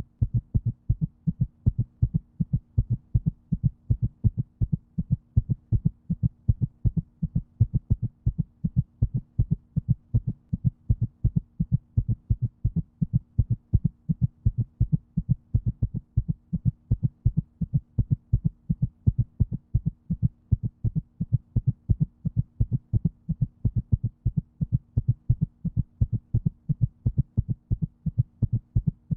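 Heartbeat: a steady, regular lub-dub pulse of low thuds that keeps the same pace throughout, over a faint steady hum.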